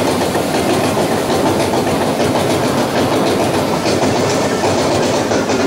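Vekoma mine train roller coaster rolling along its track: a steady loud rumble of the wheels with rattling and clattering of the cars.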